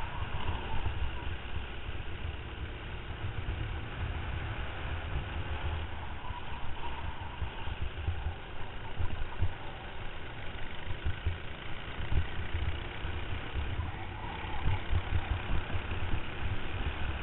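Racing kart's engine running at speed, heard from an onboard camera, its note rising and falling with the throttle, under heavy wind buffeting on the microphone.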